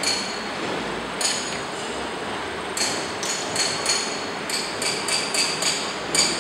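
About a dozen sharp metallic clicks with a short ring, sparse at first and then coming quickly and irregularly through the second half, over a steady background noise. The clicks come as the carriage handwheel and controls of a small benchtop metal lathe are worked.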